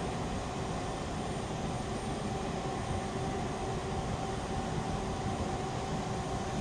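Manual lathe running steadily, turning the welded auger shaft in its steady rest during a runout check with a dial indicator. The sound is an even mechanical hum with a faint constant whine.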